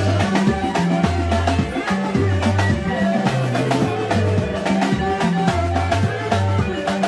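Small live band playing an upbeat groove: a drum kit keeping a steady beat under a moving bass guitar line, with electric guitar.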